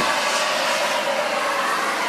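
Shrinkfast propane heat gun running steadily, blowing a hot blast onto a bronze propeller to heat the metal before the coating is brushed on.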